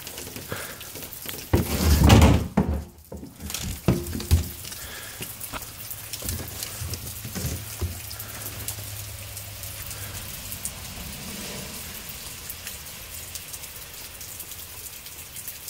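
Steady rain falling, a hiss with scattered drop ticks. About two seconds in comes one loud, heavy thump lasting about a second, followed by a couple of sharper knocks a little later.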